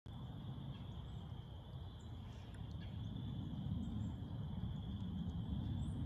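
Insects calling steadily at one high pitch, with a few faint, short bird chirps, over a low rumbling background.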